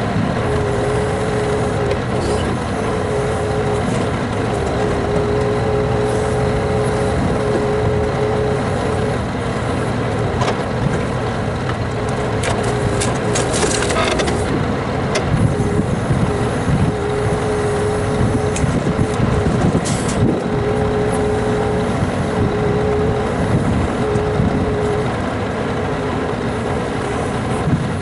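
Scania truck's engine running to drive its timber crane, with a steady hydraulic whine that comes and goes as the crane moves, while the grapple unloads split firewood. Logs clatter sharply a few times, around the middle.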